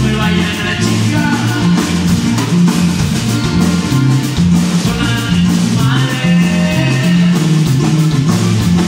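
Live band music: accordion with acoustic guitar, congas and drum kit over a steady, stepping bass line, in a lively Mexican grupero style.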